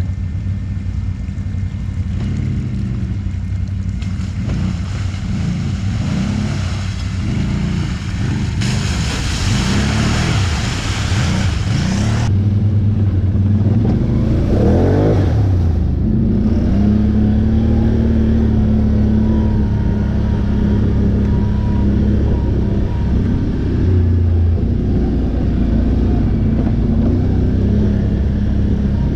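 ATV engine running under way, its pitch rising and falling as the throttle is worked, heard close from the rider's own quad. About nine seconds in, a rushing hiss joins it for a few seconds.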